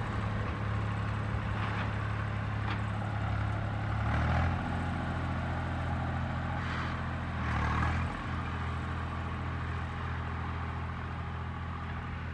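Swaraj 744 tractor's three-cylinder diesel engine running steadily under load as it pulls a tillage implement across the field. Its note swells briefly about four seconds in and again just before eight seconds.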